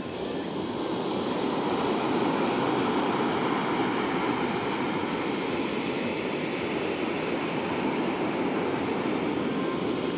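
Surf breaking steadily on a pebbly sand beach, a continuous rushing wash that grows a little louder about a second in.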